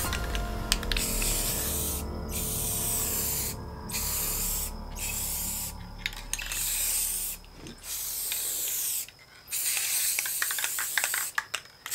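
Aerosol spray paint can spraying black paint in several bursts of hiss, broken by short pauses as the nozzle is released and pressed again. A few sharp clicks near the end.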